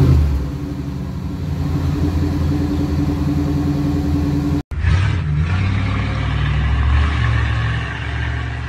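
Third-generation Chevrolet Camaro's engine running at its rectangular exhaust tip, a steady rumble. After a hard cut about halfway through, the car drives off and the engine revs up, its pitch rising as it accelerates.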